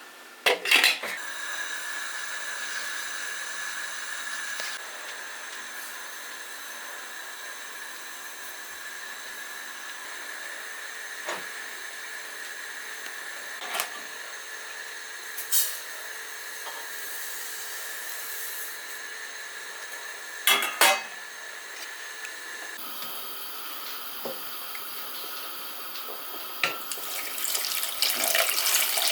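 Kitchen tap running into a sink, with dishes clinking now and then; the water gets louder near the end.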